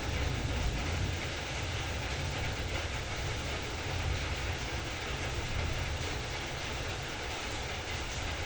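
Heavy rain falling steadily: a dense, even hiss over a deep low rumble.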